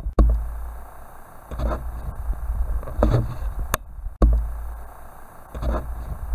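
Handling noise from plastic model kit parts and sprue being moved about close to the microphone: a low rumble with short scuffs and one sharp click near the middle.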